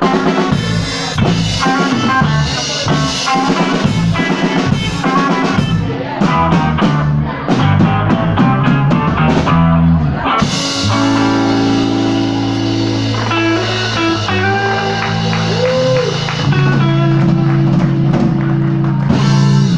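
Live rock band with a drum kit and electric guitars playing loudly. About halfway through, the busy drumming gives way to long held guitar chords with a string bend over cymbal wash. The music cuts off just before the end, as the song finishes.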